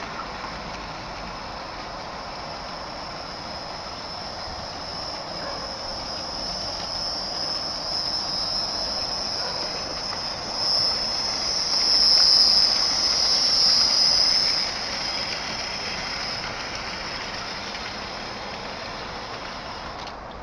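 Hornby 00 gauge model locomotive and coaches running along the track with a steady high-pitched motor whine and wheel rumble. It grows louder as the train comes close, is loudest about twelve to fourteen seconds in, then fades as it moves away.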